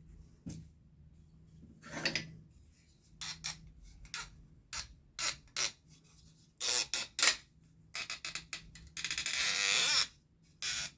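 Workshop hand work on wood: a run of short, irregular scraping and rubbing strokes, then a denser rasping burst of about a second near the end.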